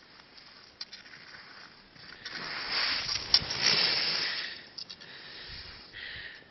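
Skis carving on packed snow: a hiss of edges scraping that swells loudly for about two seconds in the middle, with a couple of sharp clicks, then falls back to a faint hiss.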